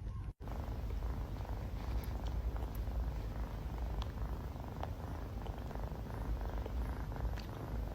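A cat purring steadily, close and low, with a few faint ticks over it.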